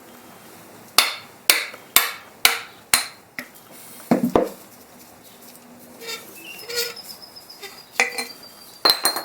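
Hammer striking metal: five sharp blows about two a second, then a heavier clank and scattered lighter metal knocks, with two more sharp hits near the end.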